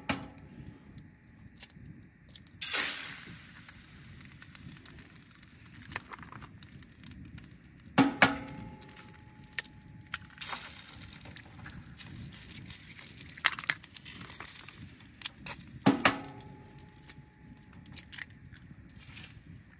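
Eggs cracked one at a time on the rim of a metal frying pan: three sharp taps about eight seconds apart, each leaving the pan ringing briefly, with softer shell-breaking sounds in between.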